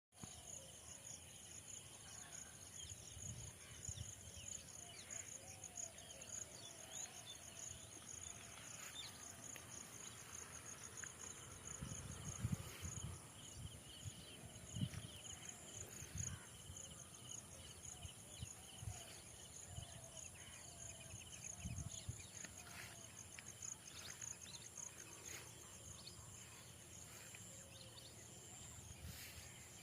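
Faint, steady high-pitched chirring of insects such as crickets, with scattered low thumps.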